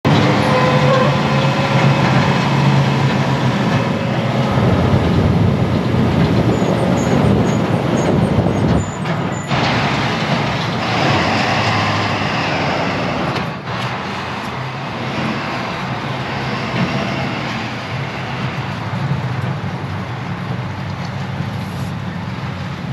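A heavy vehicle's engine running steadily, with a low hum under it. The sound changes abruptly about 9 seconds in and again about 13 seconds in.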